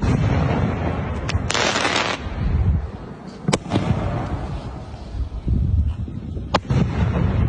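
4-inch display shells from a 16-shot firework cake launching and bursting: three sharp bangs, about a second, three and a half seconds and six and a half seconds in, over a low rumble, with a short rushing hiss at around one and a half seconds.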